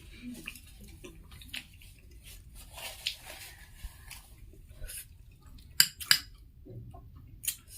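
Close-miked eating: chewing and mouth sounds, with a few sharp clicks of dishes or utensils, the loudest two in quick succession about six seconds in.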